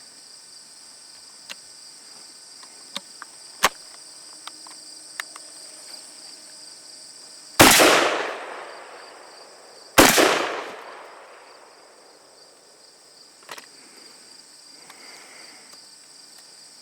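12-gauge side-by-side coach gun with exposed hammers fired twice, one barrel after the other, the shots about two and a half seconds apart, each with a long echoing tail. Crickets chirp steadily in the background, and a few light clicks come before the first shot.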